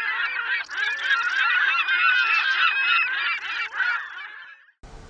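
A flock of gulls calling, many squawks and cries overlapping, thinning out and fading away near the end.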